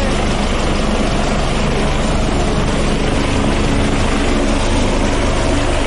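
A helicopter hovering close by: loud, steady rotor and turbine noise with a pulsing low end.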